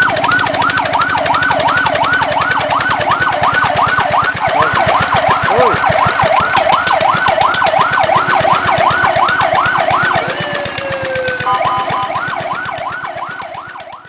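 Fire truck siren in a fast yelp, its pitch sweeping up and down about three times a second. About ten seconds in the yelp breaks off into a falling tone, then a choppier pattern of short steady tones and sweeps starts up and fades away near the end.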